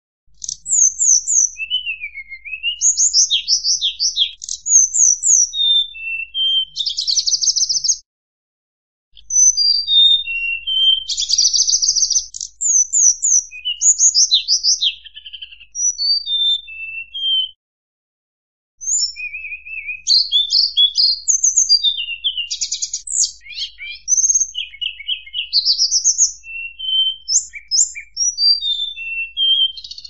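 Murai buluh songbird singing a varied song of quick high notes and rapid trills, in runs broken by two short pauses.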